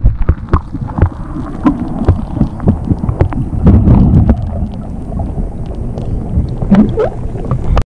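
Muffled underwater sound picked up by a camera held below the surface: low rumbling water movement with many dull knocks as the camera is moved through the water.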